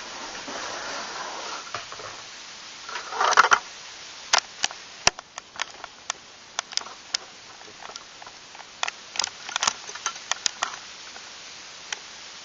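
Irregular sharp clicks and crackles over a steady hiss, with a short scraping rustle about three seconds in.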